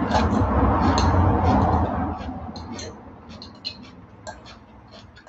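Metal fork clicking and scraping against a ceramic bowl in many short, sharp ticks. A louder low rumble over the first two seconds fades out.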